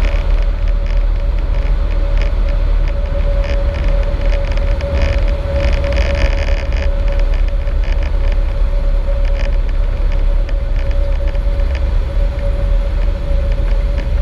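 Cessna 152 cabin noise during the landing rollout: the small piston engine running at low power under heavy wind and rolling rumble, with a thin steady high tone throughout and scattered light rattles.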